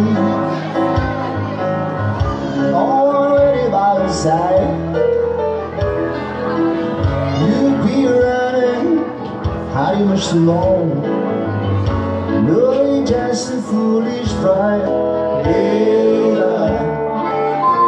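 Live band playing: electric guitar and keyboard, with a man singing.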